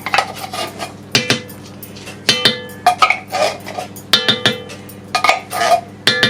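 A metal spoon scraping and knocking against a tin can and the dish while condensed soup is spooned out: repeated clinks about once a second, some ringing briefly, with scraping between them.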